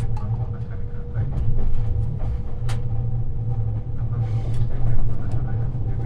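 Cabin running noise of a JR 651 series electric multiple unit under way: a steady low rumble with scattered light ticks, and one sharp click about two and a half seconds in.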